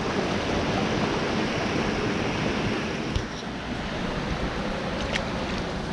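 Steady rush of water pouring over a spillway, with a couple of faint ticks about three and five seconds in.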